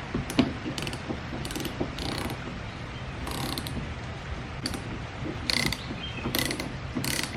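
A hand ratchet wrench worked in short strokes, giving about ten brief bursts of rapid metallic clicking at uneven intervals.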